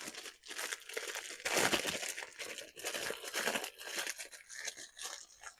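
Packaging of a new oil filter crinkling and rustling as it is handled and unwrapped, in uneven crackly bursts.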